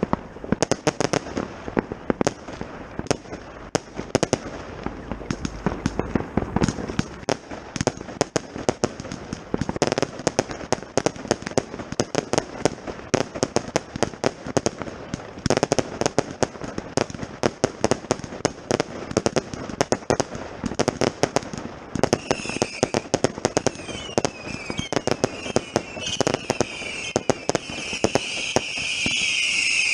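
Consumer firework batteries firing a rapid, continuous series of sharp bangs and reports. From about two-thirds of the way in, many shrill falling whistles join the bangs as more shots go up at once.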